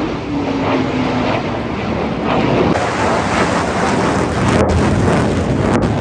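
Loud rushing noise of a passing vehicle, with a tone that falls in pitch as it goes by and fades out about a second and a half in.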